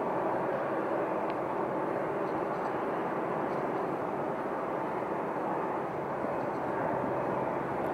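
Steady rush of a taxiing Boeing C-17 Globemaster III's four turbofan engines at low taxi power, holding an even level throughout.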